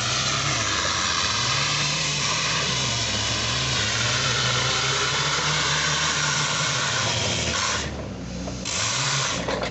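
Mindrill YODHA-200 pneumatic crawler drill's air motors running as it trams on its tracks: a loud, steady hiss of exhausting compressed air over a low wavering hum. The hiss cuts out briefly about eight seconds in and again near the end as the air is shut off and reopened.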